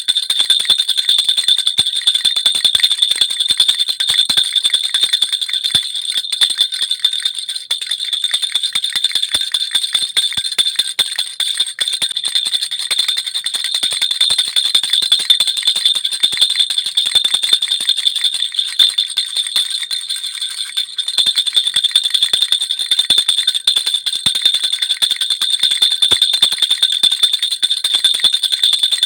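Baby rattle (jhunjhuna) shaken without pause, a dense, rapid jingling with a steady high ringing from its small bells.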